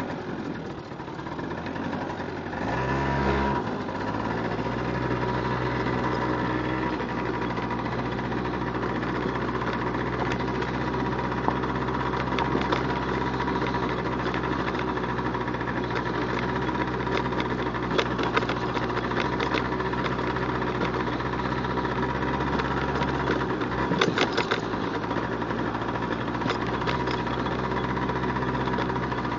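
Yamaha BWS scooter engine running at a fairly steady speed while the scooter is ridden slowly over a rough dirt track, with a brief rev about three seconds in. A few sharp knocks come midway and near the end.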